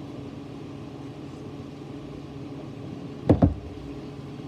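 A steady low mechanical hum, with a brief loud sound about three seconds in whose pitch drops quickly.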